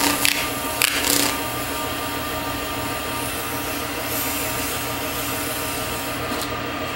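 Wood lathe running with a steady hum while 400-grit sandpaper is held against the spinning cocobolo piece, with two short louder rasps of sanding within the first second or so.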